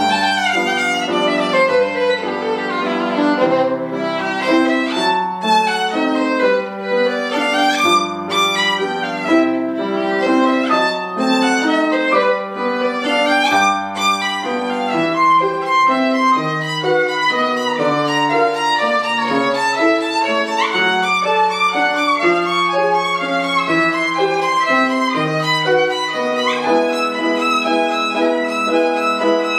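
Violin playing a classical piece with grand piano accompaniment, the violin carrying a busy, fast-moving line with a descending run right at the start, over low piano notes.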